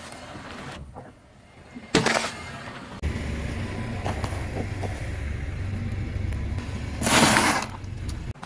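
A car tyre rolling over and crushing food on the ground. There is a sharp crunch about two seconds in, then a steady low rumble of the car from about three seconds, and a longer loud crunch near the end.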